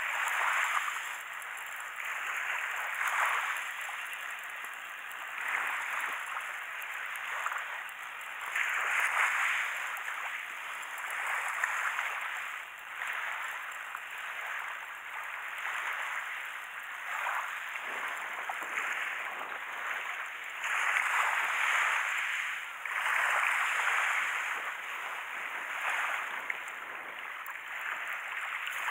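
Small waves washing onto the shore in repeated surges, each one swelling and fading over a second or two.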